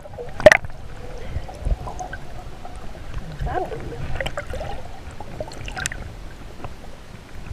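Underwater sound through a submerged camera in lake water: a splash about half a second in, then a muffled low rumble with faint bubbling and gurgles.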